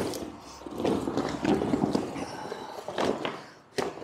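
A deflated inflatable kayak's hull being unfolded and shifted by hand on a tiled floor: irregular rustling and scraping of the stiff fabric, with a sharp knock near the end.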